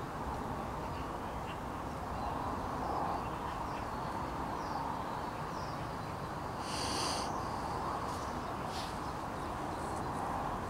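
Outdoor ambience of a steady rushing background with small birds chirping faintly. About seven seconds in comes one louder, short harsh call.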